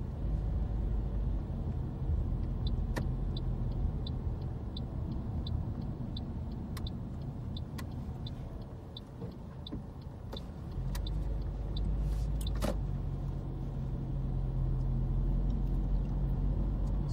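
Steady road and engine rumble inside a car's cabin, with the turn-signal indicator ticking evenly, nearly three times a second, for several seconds before it stops. The low rumble then grows louder.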